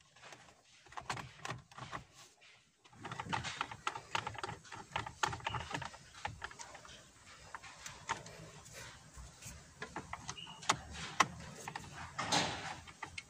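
Irregular small clicks, taps and rustles of hands handling a car's steering wheel and column controls, with a louder cluster of clicks near the end.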